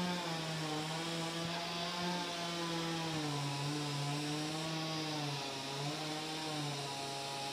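A small engine, such as a petrol power tool, running steadily, its pitch wavering and stepping up and down several times as the throttle changes.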